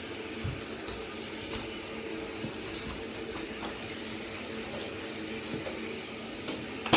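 Steady hum and hiss during a puppy's bath, with a few soft clicks and a sharp knock or splash right at the end.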